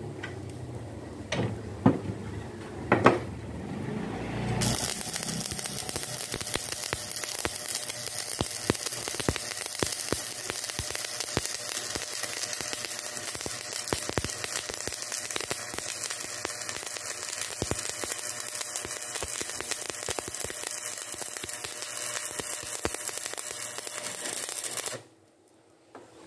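Stick (shielded metal arc) welding on steel angle bar: after a few sharp knocks, the arc strikes about five seconds in and crackles and sizzles steadily for about twenty seconds, then cuts off suddenly near the end.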